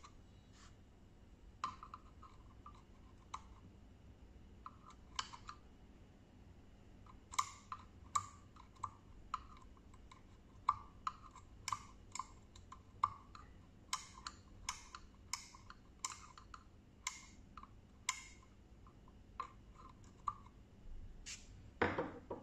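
DIP switches on a DMX512 decoder being flicked with a small screwdriver tip: a long run of faint, sharp clicks at irregular spacing, coming closer together in the middle, as the switch settings are stepped through.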